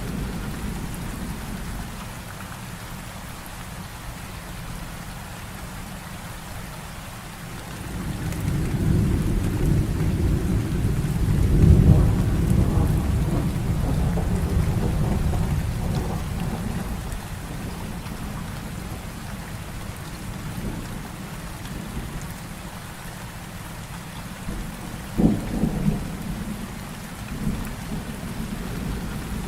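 Heavy rain falling steadily, with a long roll of thunder that builds about a quarter of the way in, peaks and rumbles away over several seconds. Near the end comes a shorter, sharper thunder crack.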